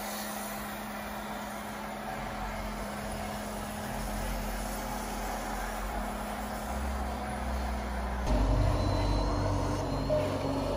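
Radio-controlled model vehicle running with a steady mechanical hum. About eight seconds in it turns suddenly louder and deeper.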